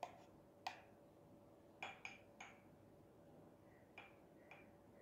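Metal spoon clinking lightly against the blender jar and ceramic mug while froth is scooped onto the coffee: about seven short clinks, with a quick pair near the middle.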